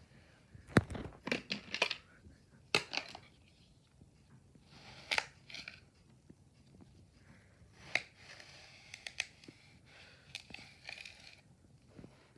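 A knife slicing and pressing through a slab of kinetic sand on a plastic tray: crumbly crunching and crackling in short irregular strokes, with sharp clicks, the loudest just under a second in.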